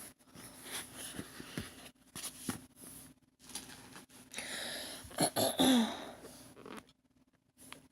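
Handling and rustling of diamond painting kit packaging, in scattered short scrapes and taps. About five seconds in comes a louder stretch with a brief vocal sound falling in pitch, like a throat clearing.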